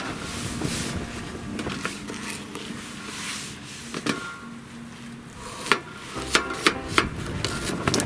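Opinel folding knife slicing through a cucumber and knocking on a plastic cutting board: a single cut about halfway, then a quick run of sharp chops near the end. Wind buffets the microphone throughout.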